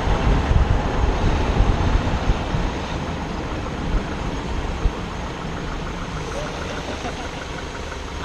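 Longboard wheels rolling on rough asphalt with wind rushing over the microphone: a steady, loud rumble that eases somewhat after about three seconds as the boards slow near the end of the run.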